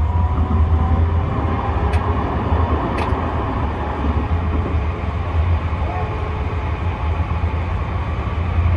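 Tram running along the track, heard from inside the car: a steady low rumble with rolling noise, and two sharp clicks about two and three seconds in.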